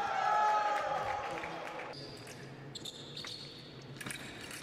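A fencer's drawn-out shout, sliding slightly down in pitch, for the first two seconds after a touch is scored. It is followed by shoes squeaking and feet stamping on the fencing piste as the foil bout goes on.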